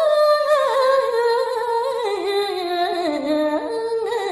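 Solo voice singing a Balinese geguritan verse unaccompanied: a slow, melismatic line of wavering held notes that winds downward, reaching its lowest point about three seconds in before rising again near the end.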